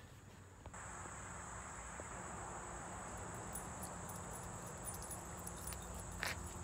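Steady high-pitched insect drone that starts abruptly about a second in, over an even background hiss, with one brief click near the end.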